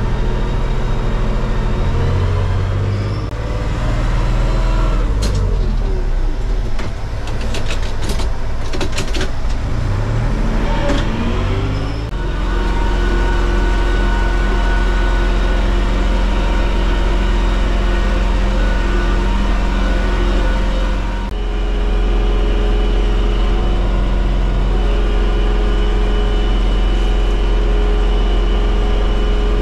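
Valmet farm tractor's diesel engine running steadily, with a cluster of clicks and rattles between about five and nine seconds in. The engine note shifts about twelve seconds in and again about twenty-one seconds in.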